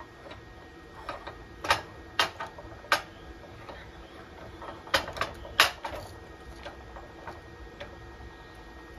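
Arbor press worked by hand, the shrinker-stretcher jaws mounted in its ram clacking shut: a series of sharp metallic clicks and clacks, loudest in a cluster about two to three seconds in and again about five to six seconds in.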